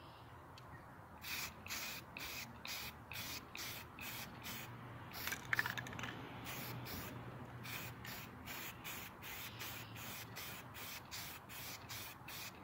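Aerosol can of spray primer being sprayed in short bursts, a hiss with each press of the nozzle, about two a second, starting about a second in.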